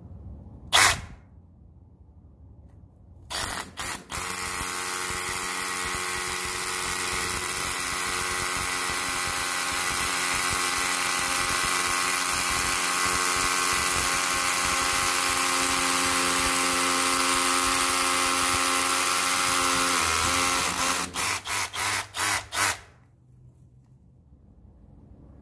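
A Milwaukee M12 CH-602C cordless rotary hammer gives two short trigger blips, then runs steadily for about seventeen seconds. It ends with a quick string of short on-off trigger pulses. A single sharp click comes just under a second in.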